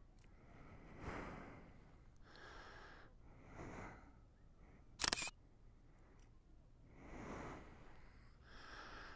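A person breathing close to the microphone, in slow swells every second or two, with one short, sharp click about five seconds in from a phone camera's shutter as a photo is taken.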